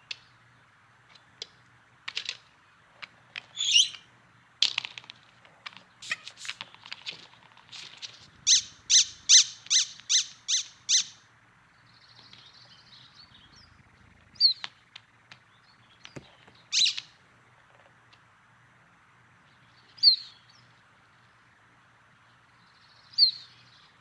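Cartoon sound effects: scattered short clicks and high chirping squeaks, with a quick run of about seven evenly spaced squeaks, roughly three a second, in the middle.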